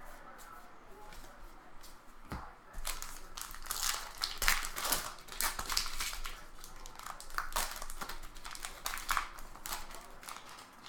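Crinkling and crackling of a trading-card pack wrapper being torn open and handled. It starts in earnest about two and a half seconds in as a dense run of sharp crackles and rustles.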